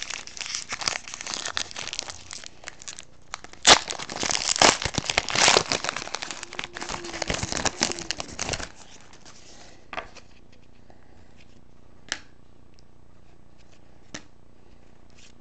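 Plastic or foil trading-card packaging crinkling and tearing as it is handled, for about eight seconds, loudest about four seconds in, followed by a few light clicks.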